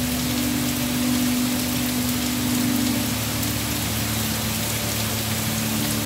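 Steady, heavy rain falling on leafy foliage, an even dense hiss of drops that stops abruptly at the very end. A low, steady drone of ambient music runs underneath.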